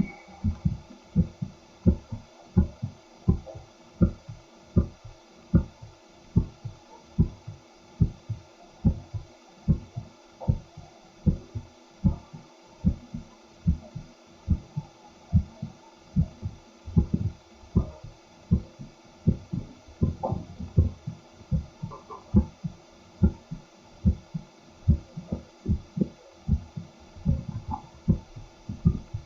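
A man's heartbeat through a stethoscope microphone: low, dull lub-dub thumps in a steady rhythm of a little over one beat a second.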